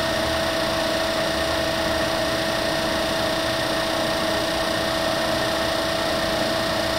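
Warner & Swasey No. 3 ram-type turret lathe running under power feed, a steady mechanical hum with two constant whining tones from its drive and gearing, unchanging throughout.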